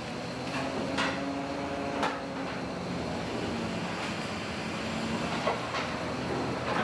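Steady drone of a longliner's engine and deck hauling machinery, with a few sharp metallic clicks and knocks.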